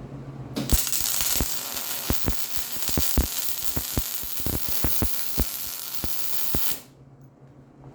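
MIG welder arc crackling and sizzling as it puddles weld into an old bolt hole in a steel link arm, with irregular pops through the hiss. It starts about half a second in and cuts off near the seven-second mark.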